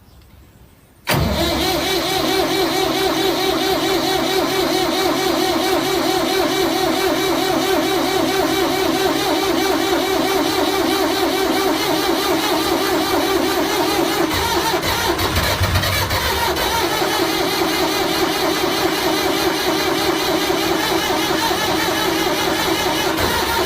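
Loud engine-like running noise that starts suddenly about a second in and runs on steadily, with a shift in pitch about two-thirds of the way through, passed off as an old PC starting up.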